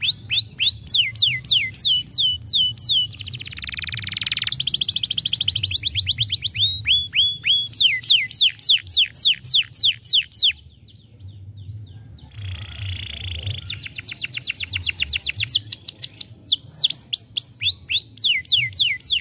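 Domestic canary singing: fast runs of falling whistled notes, several a second, broken by buzzy trills, with a short pause about halfway through.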